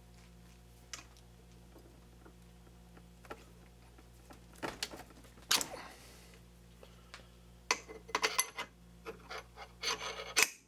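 Steel parts clicking, clinking and scraping as the hex die holder handle is pulled out of and slid back into the steel MT2 taper guide seated in a mini lathe tailstock. A few light clicks at first, then a cluster of short metal scrapes and clinks from about halfway through, busiest near the end.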